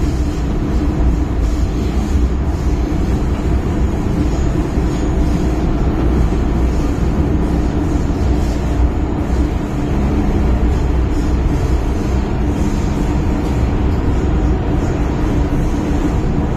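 MTR M-Train running steadily through a tunnel, heard from inside the car: a continuous low rumble of wheels on rail with a constant hum.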